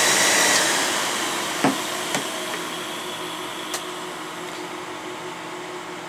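nCube MediaCube server's cooling fans and power supplies running loud, then spinning down after the unit is unplugged: a steady high whine cuts off about half a second in and the fan noise fades away over the next few seconds. A few light clicks come in between.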